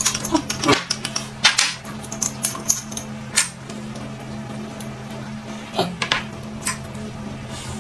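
Utensils clicking and clinking against bowls and plates during a meal, in irregular sharp strikes that cluster near the start and again about six seconds in, over a steady low drone of background music.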